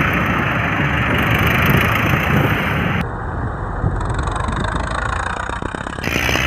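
Diesel tractor engines running steadily as a convoy of tractors and motorcycles passes close by, a dense continuous rumble with no single engine standing out.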